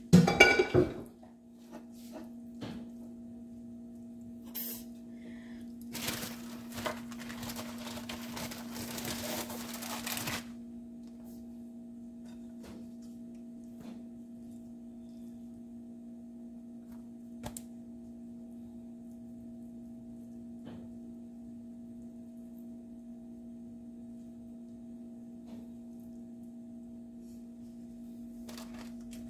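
A metal skillet clatters loudly on being set down, then a wooden spoon scrapes for about four seconds while pork filling is spread on a tortilla. A steady appliance hum runs underneath.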